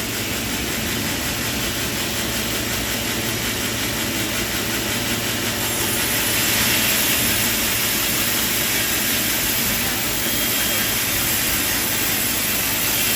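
Sawmill machinery running with a steady mechanical noise. It grows a little louder and brighter about six seconds in.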